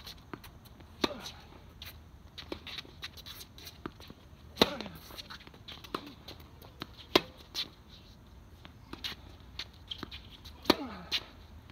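Tennis rally: a tennis ball struck by rackets and bouncing on the court, heard as sharp pops at irregular intervals of about one to three seconds, with fainter clicks and scuffs between them.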